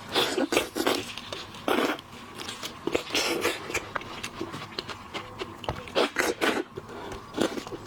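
Seafood being eaten close to the microphone: irregular chewing and sucking bursts mixed with sharp clicks, the loudest bursts coming about half a second in, near two seconds, around three seconds and around six seconds.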